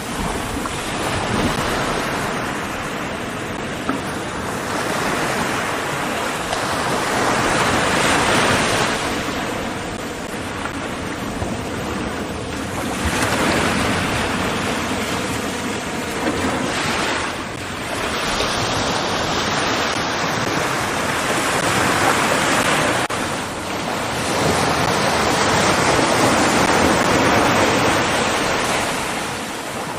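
Ocean surf: waves washing in, the rush swelling and easing every few seconds.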